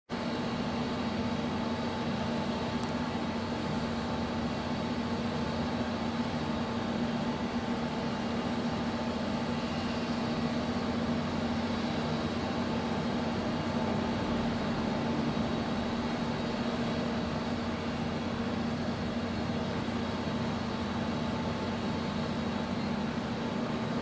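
A steady mechanical hum with a constant low drone and a few fixed higher tones over an even noise, unchanging throughout.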